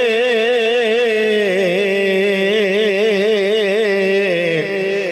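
A man's voice chanting a drawn-out line of Urdu marsiya, holding long notes with an even vibrato. The pitch steps down about a second and a half in and again near the end, where the voice drops away.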